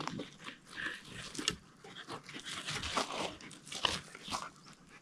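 German shepherd dogs digging in loose garden soil, their paws scratching and scraping the dirt in an uneven flurry.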